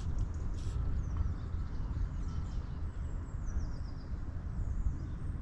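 Wind buffeting the microphone as a steady low rumble, with a songbird singing faintly in the background: a run of short, high chirps in the middle.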